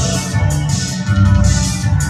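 Post-punk band playing live through a club PA: a steady, driving drum beat with regular cymbal hits over a heavy bass line, guitar and keyboards.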